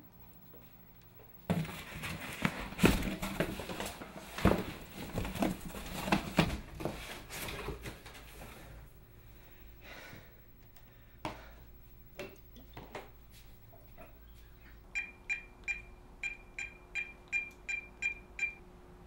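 A few seconds of loud rustling and clattering from things being handled, then scattered clicks. Near the end, a cordless phone's keypad beeps about eleven times in quick succession as a number is dialled.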